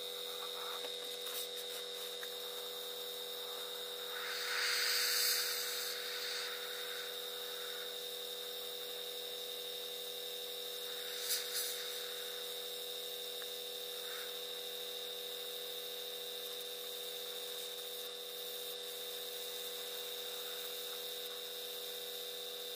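Small airbrush compressor running with a steady hum. A hiss of air and paint from the airbrush rises over it about four seconds in for a couple of seconds, with a shorter hiss near twelve seconds.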